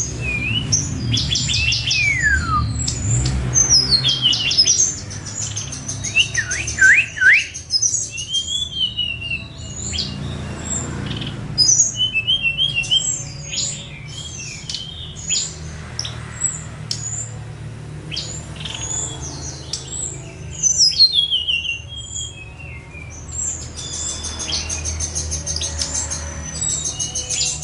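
Songbirds singing a varied medley of rapid high trills, sharp chirps and falling whistles, with a steady low hum underneath. This is song material of the kind played to train a caged songbird.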